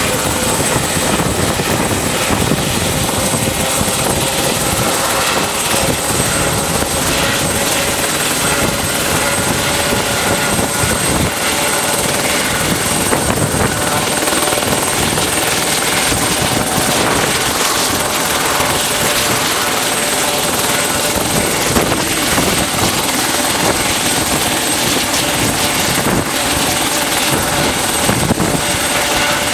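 Eurocopter EC120 Colibri helicopter running on the ground with its main rotor turning: the single Turbomeca Arrius turboshaft gives a steady high whine over the even rush of the rotor and fenestron.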